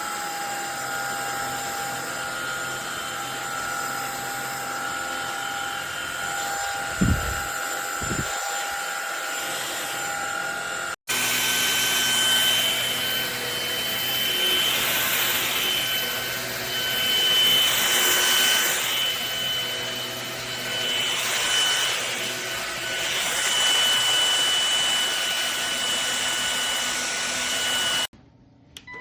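Cordless stick vacuum cleaner running: a steady high motor whine over rushing air, with two low thumps about seven seconds in. After a cut, the whine is louder and the air noise swells and fades several times.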